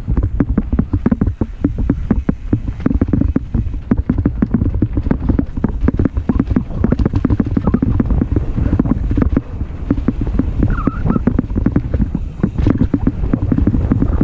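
Mountain bike riding fast over a dirt singletrack: steady low rumble of tyres on the dirt with wind buffeting the microphone, and constant rapid rattling and clicking from the bike jolting over bumps.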